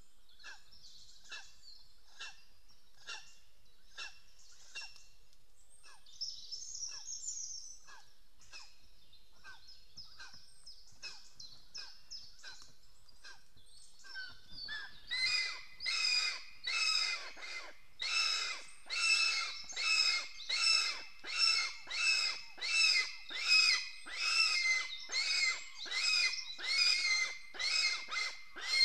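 Lesser spotted eagle calling in a long, even series of short, high, repeated notes. The calls are faint at first and become much louder from about halfway, at about one and a half calls a second.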